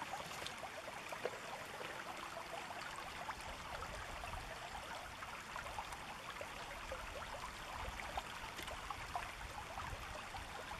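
Shallow river water running steadily over a gravel bed, a continuous even noise.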